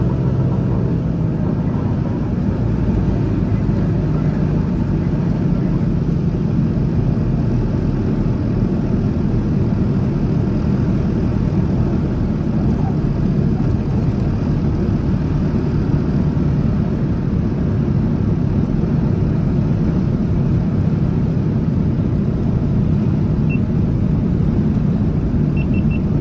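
Twin radial engines of a Lockheed Model 12 running steadily while the plane taxis, heard from inside the cabin as a loud, even low hum.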